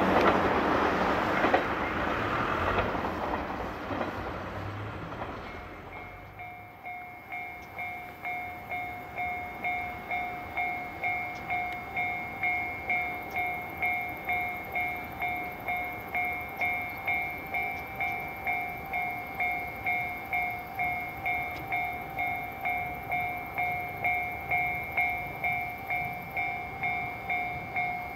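Passing-train noise fading away over the first few seconds, then a Japanese railway level-crossing warning bell ringing evenly at nearly two strikes a second, signalling an approaching train.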